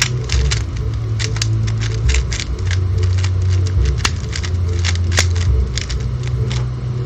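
A speedcube being turned fast by hand: an irregular run of quick plastic clicks and clacks, over a steady low hum.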